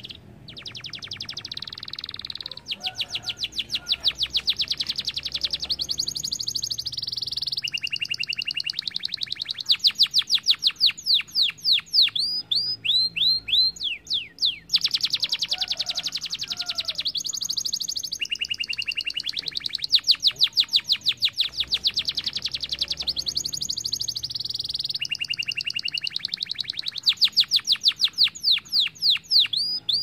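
Domestic canary singing a long, continuous song of rapid high trills and rolls, strings of fast repeated notes broken by quick sweeping chirps. The same sequence of trills comes round again about halfway through.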